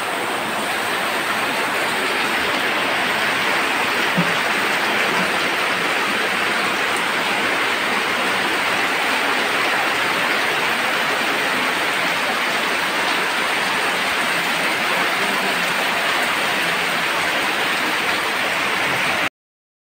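Steady heavy rain falling, an even hiss at a constant level that cuts off abruptly near the end.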